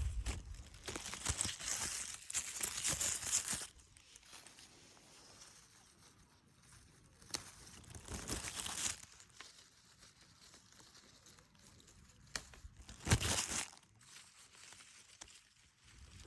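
Leafy plants rustling and crackling as they are handled and picked by hand, in three bursts with short snaps among them.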